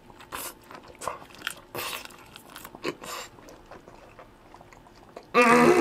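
Close-up mouth sounds of a person biting into and chewing a mouthful of lightly blanched Japanese spiny lobster meat: irregular wet smacks and clicks. Near the end comes a long hummed 'mmm' of approval.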